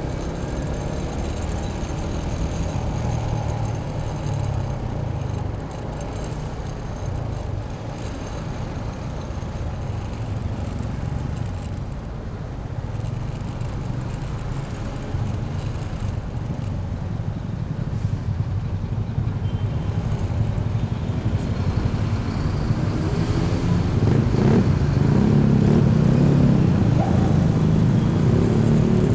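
Motorcycle engine running at low speed in slow, heavy traffic, mixed with the rumble of nearby trucks and cars. The engine and traffic noise grows louder over the last few seconds.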